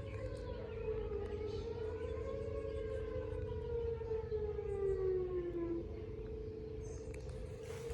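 Outdoor tornado warning sirens sounding during a siren test: one steady wailing tone, and a second siren tone that rises, then winds down in pitch and stops about six seconds in. A steady low hum runs underneath.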